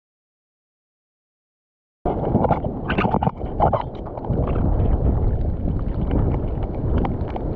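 Dead silence for about two seconds, then wind buffeting the camera microphone and water splashing around a surfer in the sea, with scattered short crackles.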